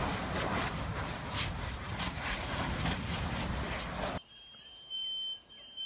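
Lava erupting from a volcanic fissure: a dense rushing noise with many crackles and pops from the spattering fountain. It cuts off suddenly about four seconds in, leaving a quieter background with short, repeated high beeps and faint chirps.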